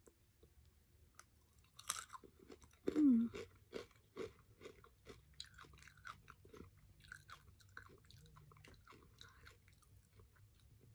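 A person chewing and crunching Jollibee Chickenjoy fried chicken with crunchy skin: irregular crunches that start about two seconds in, the loudest about three seconds in.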